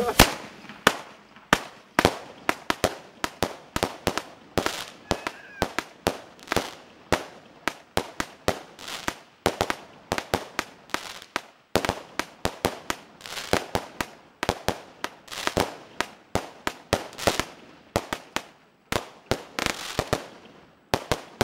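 Fireworks going off: an irregular string of sharp bangs, two to four a second, each with a short fading echo.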